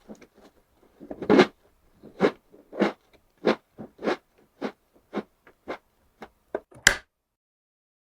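Crunchy animal-shaped biscuits being chewed close to the microphone: a steady run of crisp crunches about every half second that grow shorter and softer, with one sharp click near the end.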